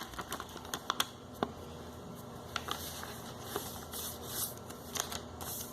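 A folded sheet of paper being opened out and handled: scattered crisp crinkles and light taps with brief rustles.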